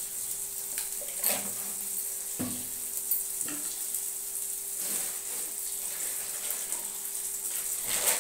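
Onion, tomato and spice masala for tarka sizzling in oil in a kadai, a steady hiss, with a few light knocks and taps of utensils and a faint steady hum underneath.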